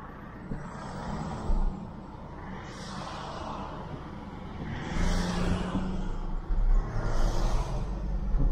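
Nissan Navara tow truck heard from inside its cab, the engine running as it pulls away from traffic lights and getting louder about five seconds in. Other traffic swishes past outside several times.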